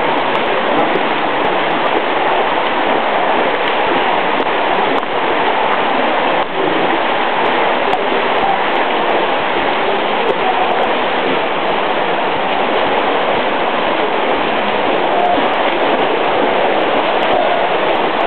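Steady rushing ambience of an indoor swimming pool hall: water noise with no distinct events, constant throughout.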